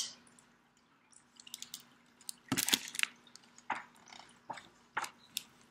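A book being handled at a desk: a scatter of soft clicks, taps and rustles, the loudest pair about halfway through, over a faint steady hum.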